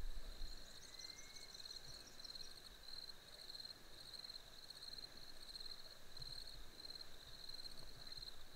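Crickets chirping: a faint, steady, high-pitched pulsing trill that keeps repeating.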